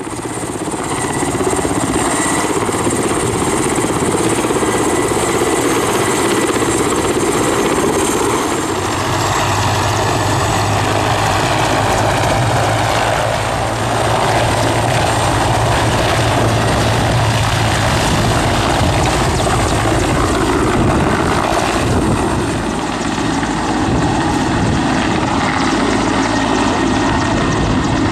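Mi-8 helicopter's twin turboshaft engines and main rotor running loud and steady at take-off power as it lifts off and climbs away. A high turbine whine stands out for the first several seconds, then fades under the steady rotor noise.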